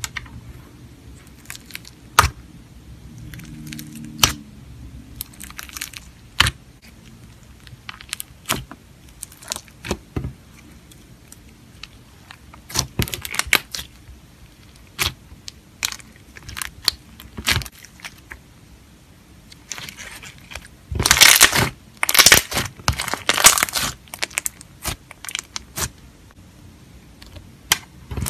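Slime being worked by hand, making scattered sharp pops and clicks, with a longer run of loud crackling about two-thirds of the way through.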